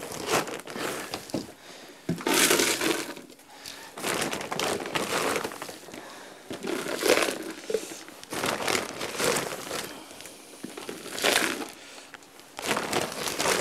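Dry animal feed being scooped out of a feed bag with a small coffee can and poured into a plastic container, a rustling, rattling burst every couple of seconds.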